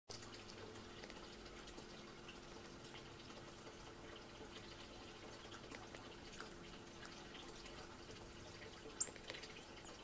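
Quiet room with a faint steady hum and scattered soft ticks, and one short, sharp high chirp about nine seconds in.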